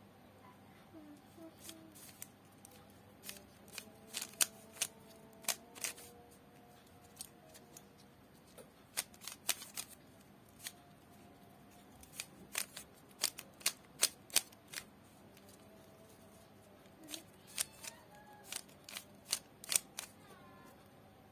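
Plastic 3x3 speed cube being turned by hand: quick runs of sharp clicking layer turns, with short pauses between sequences.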